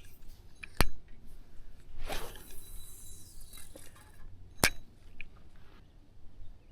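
Fishing tackle being handled: two sharp clicks about four seconds apart, with a short swish between them.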